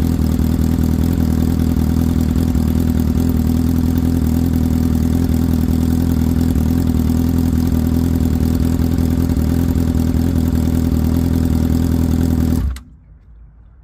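2006 Honda CBR600RR inline-four engine idling steadily on a fresh 2.5-quart oil fill, then switched off and cutting out suddenly near the end.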